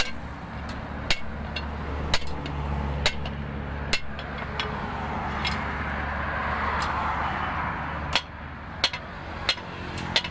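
Hammer blows on a steel leaf-spring blank on an anvil: sharp metal strikes about once a second, a pause of a few seconds, then quicker strikes near the end. A steady low hum runs underneath and fades about eight seconds in.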